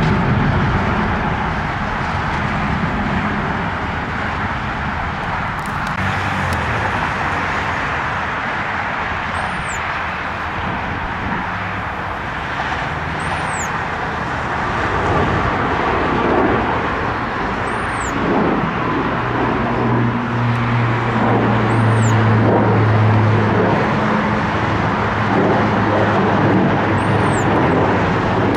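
Jet airliner engines running with a steady roar, growing louder in the second half as a low engine hum strengthens. A faint high chirp repeats about every four seconds.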